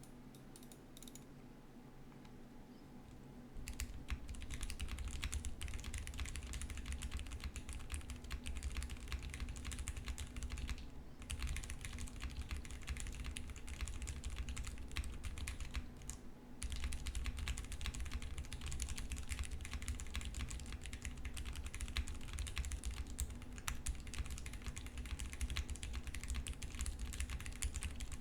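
Typing on a custom mechanical keyboard: a Hex 3c case with lubed Cherry MX Brown tactile switches, an FR4 plate, a tape-modded PCB and GMK keycaps. The typing starts about three and a half seconds in and runs in a fast, steady stream of key clacks, with two short pauses, near the middle and just after.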